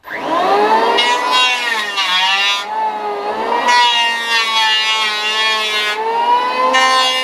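Handheld electric plane running as it cuts along a wooden board: a loud motor whine whose pitch sags and recovers several times as the blade bites into the wood.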